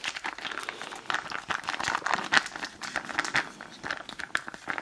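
Olive-drab foil-laminate MRE retort pouch crinkling and crackling as it is squeezed and handled, a steady stream of irregular crackles.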